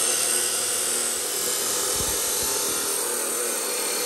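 Hitachi abrasive chop saw running at full speed, its cutoff wheel grinding through black steel pipe with a steady high-pitched whine and hiss. A couple of low knocks about two seconds in.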